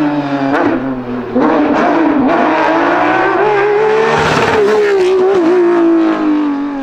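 Race car engine at high revs through several quick gear changes, then pitch sliding steadily down near the end.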